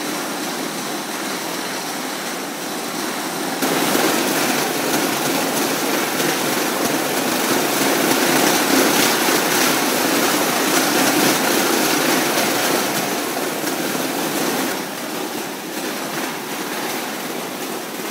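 Homemade dog treadmill running with a dog trotting on it: a steady mechanical noise of the moving belt that grows louder about four seconds in and eases off a few seconds before the end.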